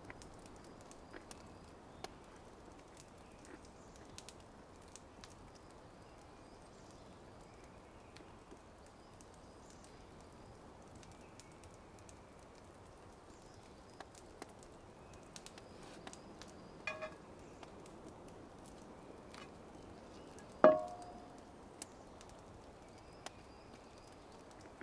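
Wood campfire crackling faintly with scattered small pops over a soft steady hiss. A metal utensil clinks lightly against a cast iron frying pan, then, a few seconds later, strikes it once sharply with a short ringing note.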